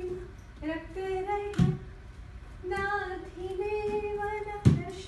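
A woman's voice singing a Shabdam song in long held, gliding notes, with two sharp thuds about one and a half and four and a half seconds in.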